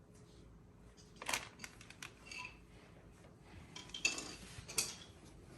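A few light metallic clinks and clicks, spaced a second or so apart, as small bike parts and tools are handled during the brake removal.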